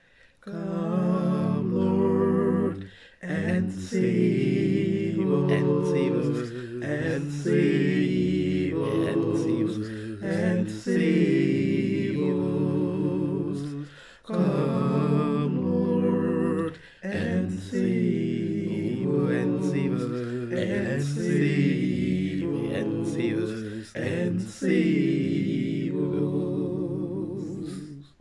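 A cappella male singing: one man's voice multi-tracked into several harmonised parts, singing slow, sustained phrases with short breaths between them.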